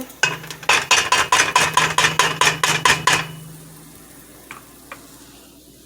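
A utensil stirring and scraping thyme, garlic and curry powder around a hot pan of oil, in quick strokes about five a second for some three seconds, then stopping. The spices are browning in the fat before the chicken goes in.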